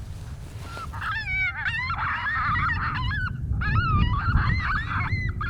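A group of coyotes yipping and howling together, several wavering high voices overlapping, starting about a second in. A low wind rumble lies under them.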